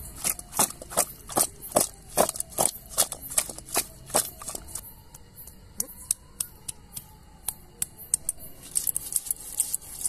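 A stone pestle knocking garlic cloves against a flat grinding stone, crushing them for a paste. The knocks are sharp and come about two to three a second for the first few seconds, then turn fainter and scattered as the garlic is ground.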